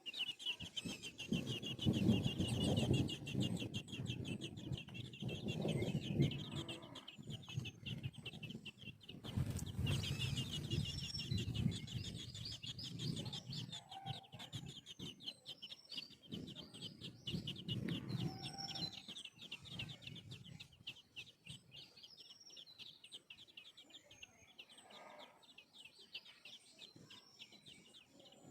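Baby birds chirping rapidly and without pause as they are fed, with louder, lower bursts of sound at intervals, most in the first half.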